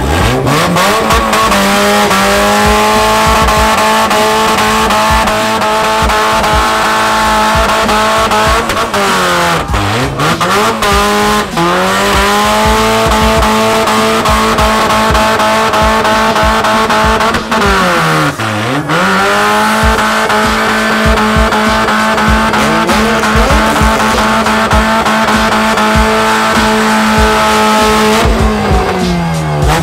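Car engine held at high revs during a burnout, with the spinning tyres screeching underneath. The revs dip sharply and climb back three times, twice about a third of the way through and once a little past halfway, then fall away near the end.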